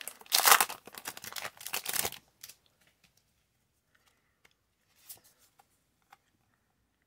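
Foil wrapper of a Pokémon card booster pack crinkling and tearing as it is opened, stopping about two seconds in. Then a few faint clicks and a brief rustle as the cards are handled.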